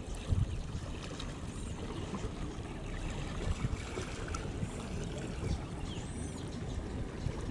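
Passenger fast ferry's engines rumbling low and water churning along its hull as it gets under way.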